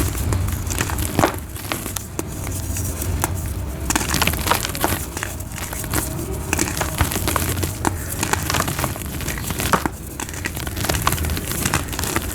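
Blocks of soft white gym chalk being crushed and crumbled into powder, a run of irregular soft crunches and small crackles.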